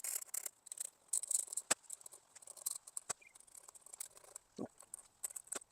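Blade scraping old red and blue paint off the back of a clear plastic hubcap center emblem: short, quiet, scratchy strokes, a little at a time, with a couple of sharp clicks.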